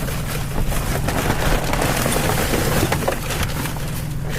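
Rummaging through garbage in a dumpster: dense crackling and rustling of plastic trash bags and refuse, with scattered small clicks and knocks of items being moved.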